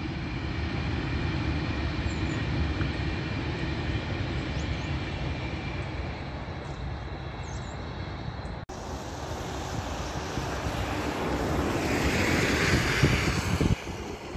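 Long passenger train running away along the line, its rumble easing off slowly. After a cut, a rush of noise builds up and stops suddenly near the end.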